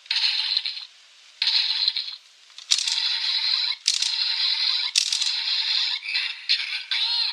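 Electronic sound effects from a Kamen Rider Revice rolling stamp toy, played through its small tinny speaker. The effects come as a series of rattling bursts of about a second each, with short breaks between them.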